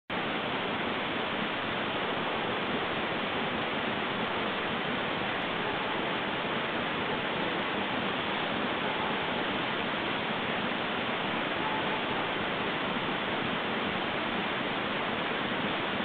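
Steady, even hiss with no distinct events, cut off sharply above the upper mid-range: the self-noise of a trail camera's microphone and recorder.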